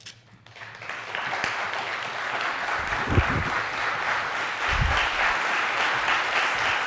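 Audience applauding, building up about a second in and then continuing steadily, with two dull thumps about three and five seconds in.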